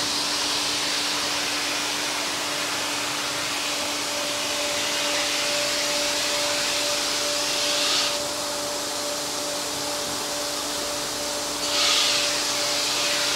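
Montana automatic ski stone-grinding machine running with its water spray: a steady hiss over a steady hum, a second higher hum tone joining about four seconds in, and a brighter hiss that swells and fades a few times.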